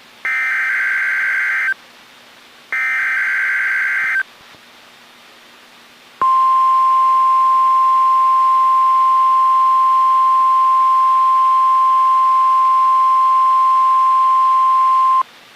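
NOAA Weather Radio emergency alert test signal. The last two of three screeching SAME digital header bursts come first, about a second and a half each with short gaps between. After a pause of about two seconds, the 1050 Hz warning alarm tone sounds as one steady pure tone for about nine seconds and then cuts off. It is heard as fed directly from a weather radio's audio output.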